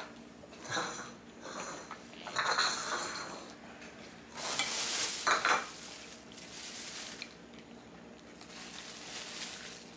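A cat eating from a bowl of dry kibble mixed with wet food: irregular bursts of crunching and chewing, with the bowl clinking.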